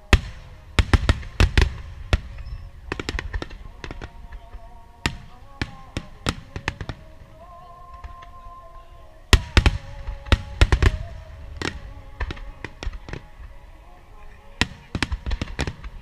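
Aerial fireworks shells bursting with sharp bangs in rapid volleys: a dense cluster in the first two seconds, scattered bangs after, and another dense cluster around nine to eleven seconds. Music with held notes plays under the explosions.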